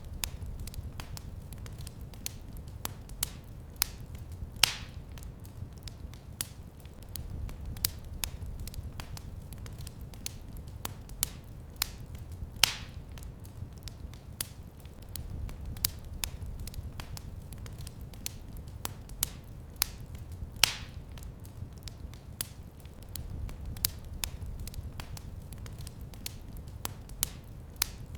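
Fire crackling in a fireplace: a steady run of small snaps and pops over a low, even rumble, with three louder pops spaced about eight seconds apart.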